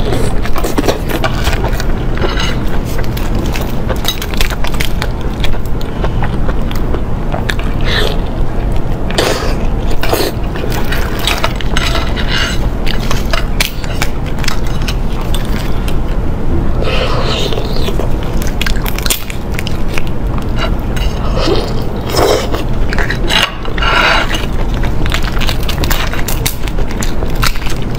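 Raw whole shrimp being peeled by hand close to the microphone: the shells crackle and snap in quick, irregular clicks, with chewing in between.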